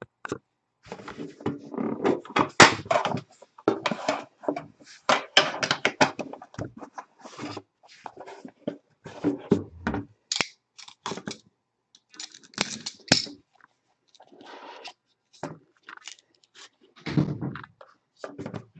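Packaging of a Panini Immaculate trading-card box being opened and its pack of cards unwrapped and handled: irregular knocks, scrapes and tearing, with a quieter stretch about two-thirds of the way through.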